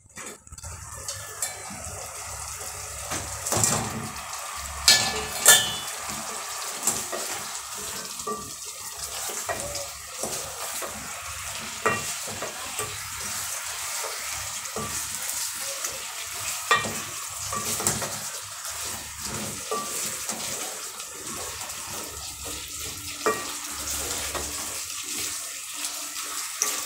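Chicken pieces being stirred with a wooden spoon through a thick honey, soy and ketchup sauce that is sizzling steadily in an aluminium pot on the stove. The spoon knocks against the pot a few times, loudest about five seconds in.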